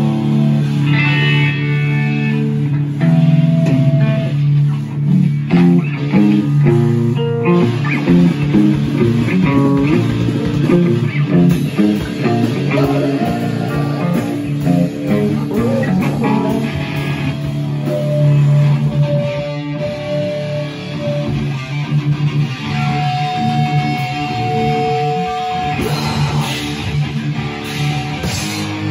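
Electric guitars played loudly through amplifiers, with held chords and single long sustained notes.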